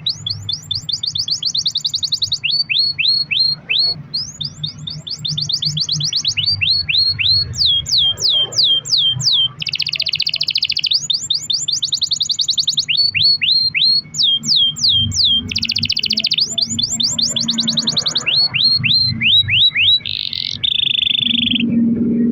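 Domestic canary singing a long, unbroken song of fast rolls and trills: each phrase is a rapid run of repeated high sweeping notes, switching to a new phrase every second or two. The song has no pause and is a canary in full song.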